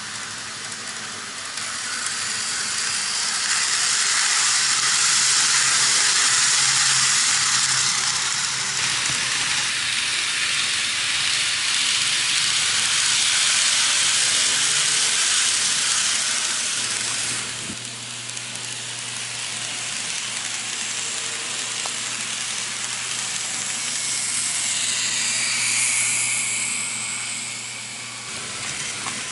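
N-gauge model trains running on track: a steady hissing rattle of wheels on rail with a faint low motor hum. It swells as trains pass close and drops suddenly about two-thirds of the way through.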